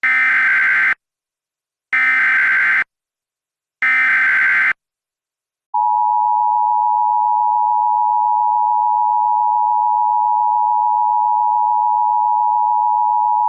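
Emergency Alert System SAME header: three one-second bursts of screeching digital data tones about two seconds apart. After a short gap comes the steady two-note EAS attention signal, held for about eight seconds. Together they mark the start of a new alert, a tornado warning.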